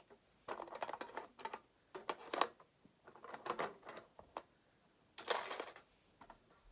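Small fidget toys being handled and knocked together: irregular clusters of clicks and clatters, with a longer rustling scrape about five seconds in.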